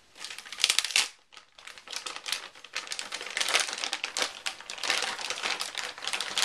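Packaging crinkling and crackling as it is cut and pulled open by hand, in dense irregular bursts with a short lull about a second in.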